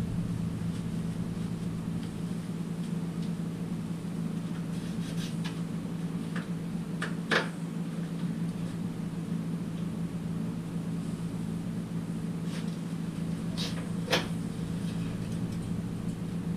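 Steady low hum with a few sharp clicks and knocks as the last mounting nuts of a 1987 Buick Grand National's front bumper are taken off by hand and the bumper is held and shifted; the loudest knock comes about seven seconds in, another about fourteen seconds in.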